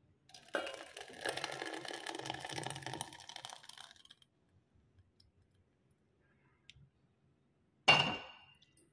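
Thick, milky sabudana kheer poured from a pan into a stainless steel bowl, a wet, lumpy pour lasting about three and a half seconds. Near the end, a single sharp metallic clank that rings briefly.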